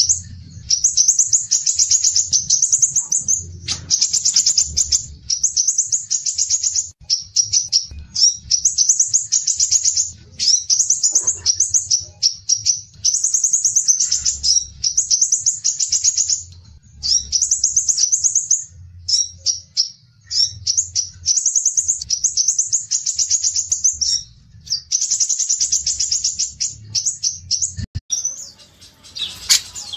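A small songbird singing fast, high-pitched chattering phrases of about a second each, one after another with brief pauses, over a faint low hum; a louder, fuller phrase begins near the end.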